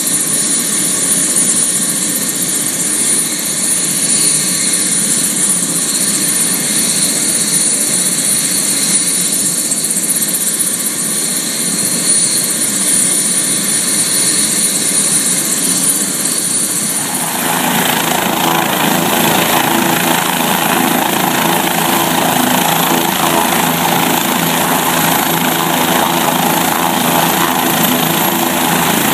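Bell 407 helicopter running with its main rotor turning: a steady turbine whine with a high tone and the rotor's thrum. About seventeen seconds in the sound changes suddenly to a closer, fuller engine and rotor noise.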